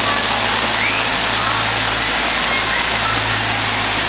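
Heavy monsoon rain pouring onto a flooded street, with rushing floodwater: a loud, steady hiss.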